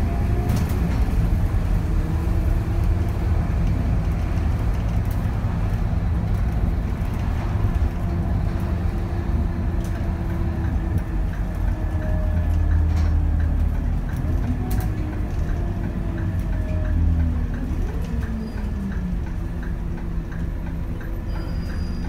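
Scania K280 city bus's rear-mounted five-cylinder diesel engine running under way, heard inside the bus, its note rising and falling as the revs change. A faint regular ticking joins in about halfway through.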